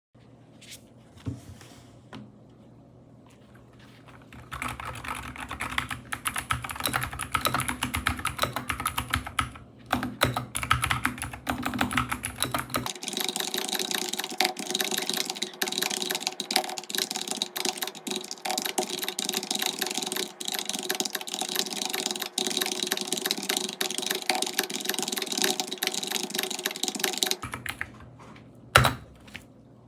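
Typing on a mechanical keyboard: a fast, continuous patter of keystrokes starts about four seconds in. About halfway through, the keystrokes take on a thinner tone with less bass. A single loud click comes near the end.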